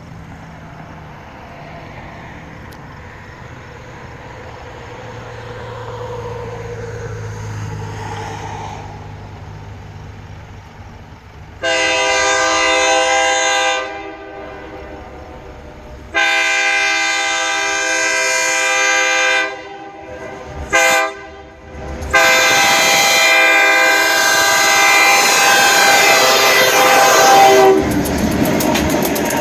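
A diesel freight locomotive rumbles faintly as it approaches, then sounds its air horn in the grade-crossing signal: two long blasts, a short one and a final long one. Near the end the locomotives pass close by with engine noise and wheels clattering on the rails.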